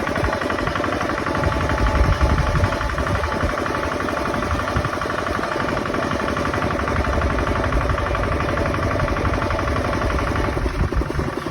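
Bulldozer's diesel engine running steadily, with a fast, even beat of firing pulses.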